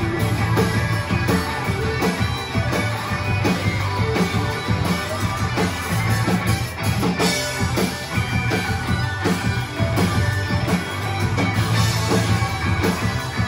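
Rock band playing live: two electric guitars, electric bass and drum kit, with steady drum hits under the guitars.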